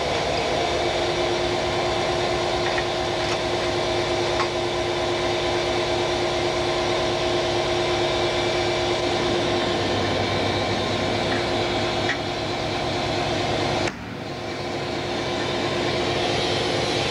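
Diesel locomotive idling steadily, a constant engine hum with two held tones. The sound drops briefly about fourteen seconds in, then comes back.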